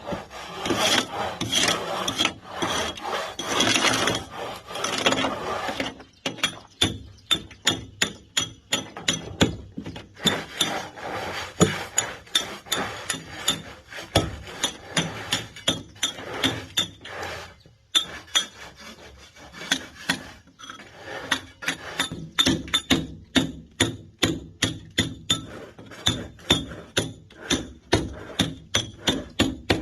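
Rough rasping and scraping for about six seconds, then a hammer striking a chisel to break concrete: sharp ringing blows at about two a second, with a couple of brief pauses.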